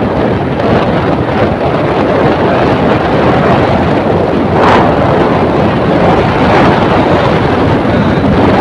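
Steady loud rush of a moving vehicle, with wind on the microphone, while riding along a road. A brief, sharper sound stands out about halfway through.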